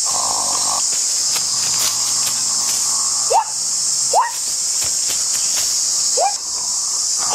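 Insects droning steadily at a high pitch. Over the drone comes a short rising call, about four times in the second half, each a second or two after the last.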